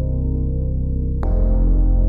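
Slow background music with sustained chords over a deep bass; a new chord comes in a little over a second in.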